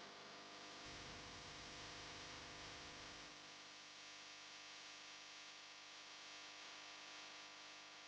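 Near silence: a faint steady hum and hiss, with a brief low rumble in the first few seconds.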